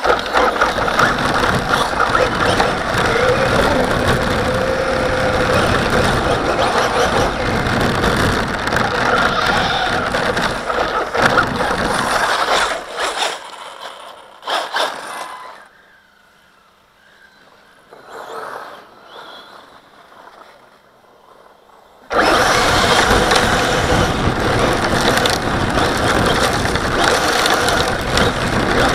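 Running noise of an RC car picked up by a camera mounted on the car as it drives over packed snow, loud and steady. About halfway through it falls to a faint hush for several seconds, then cuts back in just as loud.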